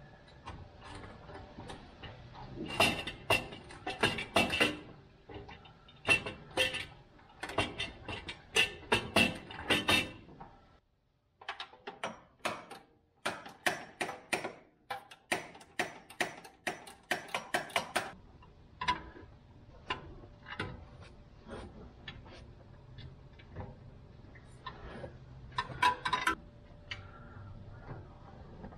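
Metal clanks and knocks as a stainless exhaust header is fitted up to the engine, with a run of rapid clicks from a ratchet wrench tightening its bolts through the middle.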